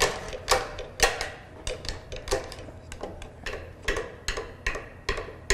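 Sharp metallic clicks and taps, two or three a second at uneven spacing, from hand tools working against the steel shaft and bearing housing of an old KUKA robot arm during teardown.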